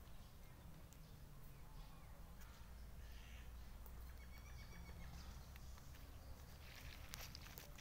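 Near silence: faint outdoor ambience with a steady low rumble, a faint pitched animal call about halfway through, and a few light rustles near the end.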